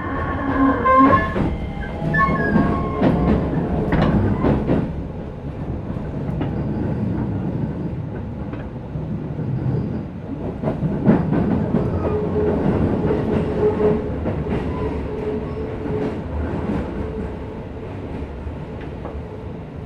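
Interior running sound of a Keisei 3050-series electric train with a Toyo IGBT VVVF inverter: the traction motor and inverter whine climbs in pitch near the start as the train accelerates, then wheel rumble and repeated clacks over rail joints, with a steady motor hum in the middle.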